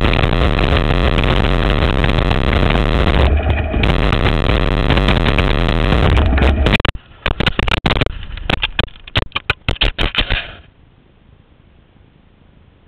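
Wind rushing over the microphone and mountainboard wheels rolling fast over the ground. About seven seconds in it breaks into a crash, a run of irregular knocks and scrapes lasting some four seconds, then stops suddenly into quiet.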